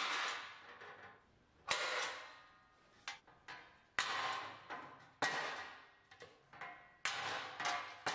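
Sheet aluminum panel struck by a hand tool: about nine sharp metallic taps at uneven intervals, each followed by ringing that fades over about a second.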